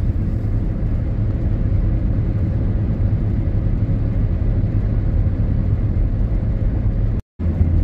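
Steady road and engine rumble of a car cruising on a highway, heard from inside the cabin. It drops out abruptly for a split second near the end.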